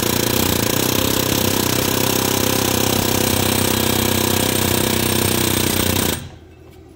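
Pneumatic air hammer hammering rapidly and continuously on a seized PTO clutch, driving it down off the engine's crankshaft. It stops about six seconds in.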